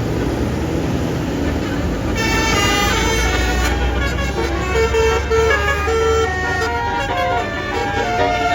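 Bus engine and traffic noise, then about two seconds in a multi-tone basuri (telolet) bus horn starts playing a tune, its notes stepping from pitch to pitch over the engine's low rumble.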